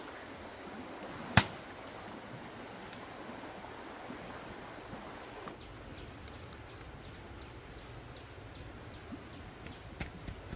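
A single sharp click about a second and a half in, over a steady high-pitched whine and an even background hiss, with a few small ticks near the end.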